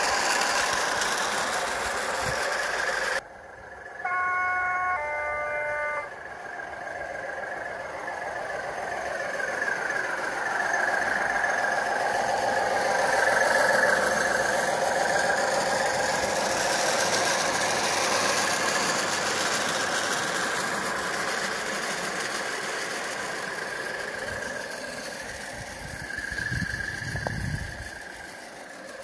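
Class 37 diesel engine sound from a model locomotive's onboard sound card, running steadily through the model's small speaker. About four seconds in it sounds a two-note horn, one note then a lower one, each about a second long. The sound grows louder and then fades as the locomotive passes.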